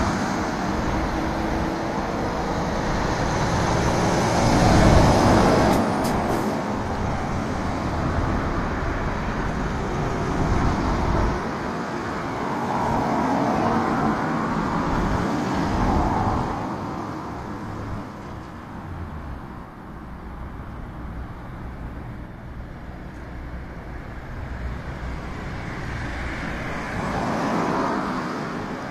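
Road traffic noise: vehicles going by, swelling and fading several times, the loudest pass about five seconds in.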